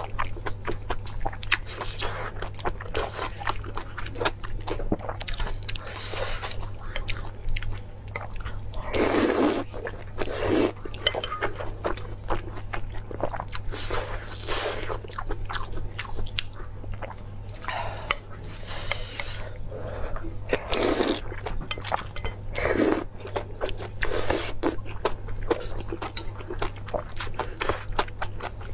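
Close-miked eating: chewing and biting on hot pot meat and enoki mushrooms, with wet mouth sounds and chopsticks clicking and scraping against the metal pot. Several louder drawn-out mouth noises come in between, over a steady low hum.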